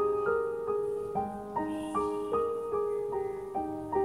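Background music: a gentle piano melody of single notes, about two or three a second.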